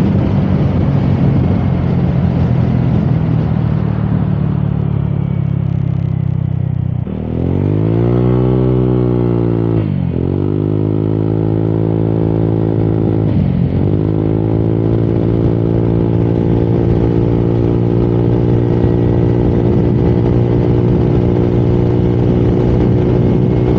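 Honda Click 125i scooter's single-cylinder engine under way, heard from on board with wind rush that fades over the first seconds. About seven seconds in, the engine note climbs as the throttle opens. It drops sharply and comes back up twice as the throttle is eased off and reopened, then settles into a steady cruising pitch.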